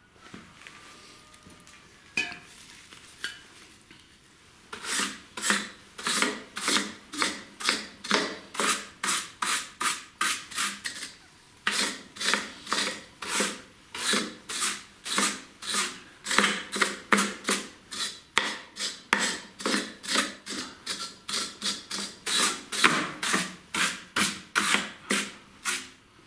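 Stiff wooden-backed brush scrubbing grass clippings off the perforated metal flywheel screen of a Honda GCV160 engine. It goes in quick back-and-forth strokes, about two a second, starting about five seconds in, with a brief pause near the middle.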